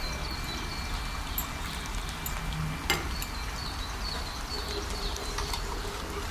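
Fish curry gravy bubbling at a boil in a pan, a steady hiss with many small pops. One sharp click about three seconds in.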